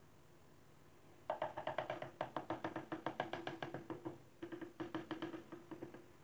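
Butt of a hammer handle tapping rapidly on a ceramic floor tile, about seven light knocks a second with a ringing tone, bedding the tile into fresh cement mortar. The tapping starts about a second in and breaks off briefly just past the four-second mark.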